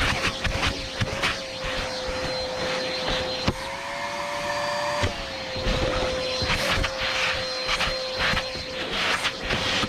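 Vacuum cleaner running while hoovering a car interior: a steady motor whine, with dirt and grit rattling and crackling up the nozzle. The whine steps up in pitch between about three and a half and five seconds in, with a click at each change, then settles back.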